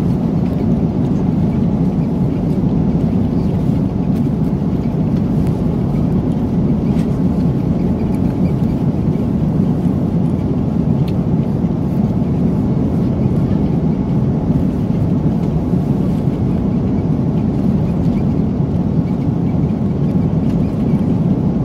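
Steady airliner cabin noise in flight: an even, low rumble of engines and airflow that does not change.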